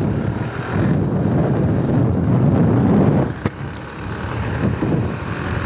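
Bajaj Pulsar NS200 motorcycle riding along, its single-cylinder engine running under wind buffeting on the microphone. The sound is loudest from about one to three seconds in, with a sharp click about three and a half seconds in, after which it drops off.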